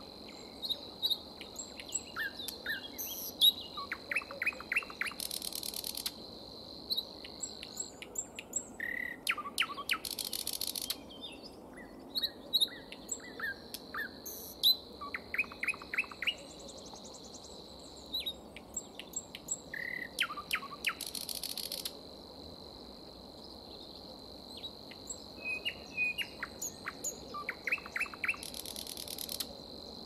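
Common nightingale singing a string of varied phrases separated by short pauses: fast runs of rapidly repeated notes, clear whistled notes, and rasping passages about a second long. A steady high tone runs beneath much of the song.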